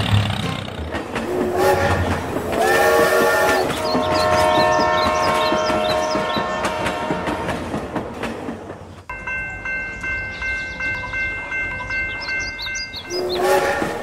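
Train horn sounding in several blasts over a rhythmic clatter of wheels on rail joints. About nine seconds in it changes abruptly to one long steady chord.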